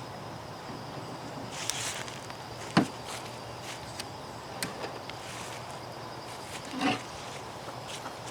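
A few scattered knocks and rustles of lumber being handled while a wooden frame is built, the loudest a single sharp knock about three seconds in.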